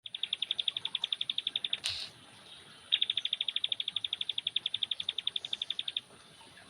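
Juvenile ciblek pare, a prinia, giving its rapid 'ngeriwik' trill: high, even notes repeated about sixteen times a second in two runs, the first about two seconds long and the second about three. A short sharp knock sounds between the runs.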